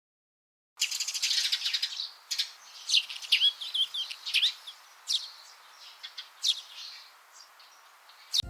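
Small birds chirping and twittering: a rapid trill about a second in, then scattered short high chirps and quick up-and-down calls that thin out towards the end.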